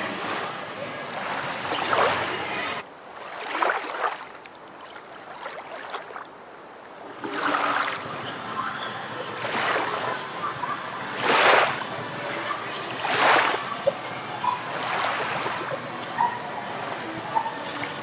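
Water splashing in an indoor swimming pool, swelling and fading in repeated surges a second or two apart, with people's voices under it.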